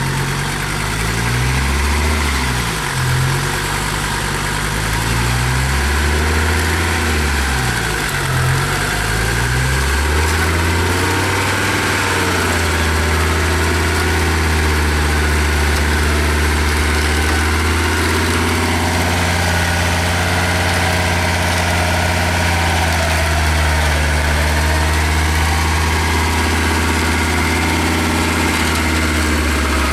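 GAZ-69 off-road vehicle's engine running, its revs rising and falling several times over the first dozen seconds, then settling to a steady run.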